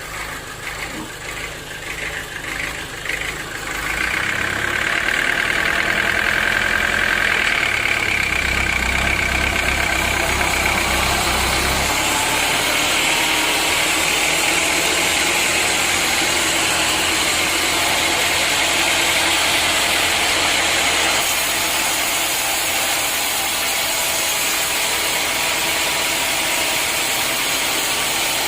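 Sawmill machinery running: a softer pulsing for the first few seconds, then the saw's engine grows louder about four seconds in and keeps running steadily. From about twelve seconds a steady hiss joins it, the saw cutting through timber.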